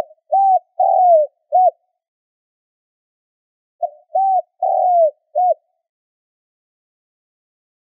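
Spotted dove cooing in two phrases a few seconds apart. Each phrase has four notes: a short coo, a second coo, a longer coo that falls in pitch, and a short final coo.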